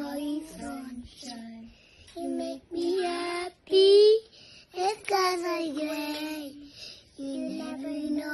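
Young children singing in high voices, in short phrases with brief pauses, with one loud rising high-pitched squeal about four seconds in.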